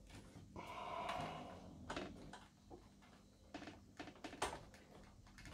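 Toshiba V8600 Betamax VCR being turned over and handled on a workbench: a short scrape about half a second in, then a series of light knocks and clicks.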